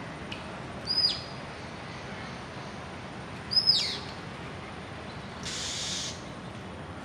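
A bird calling twice, each call a sharp high whistle that flicks up and then sweeps down in pitch, about two and a half seconds apart. A short burst of hiss follows near the end, lasting well under a second.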